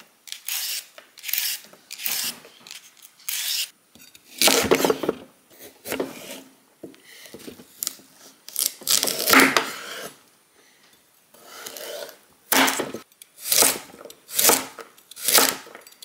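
Kitchen knife cutting carrots on a bamboo cutting board, in a series of separate knife strokes against the wood, falling into a regular run of cuts about one a second near the end.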